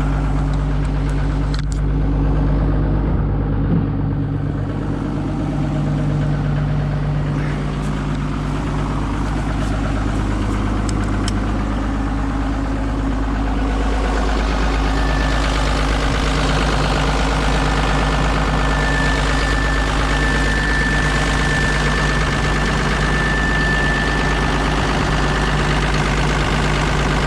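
Kobelco SK250 LC excavator's diesel engine running steadily, freshly refilled with oil. About halfway through the sound turns brighter and busier, and a thin steady high whine sounds for several seconds.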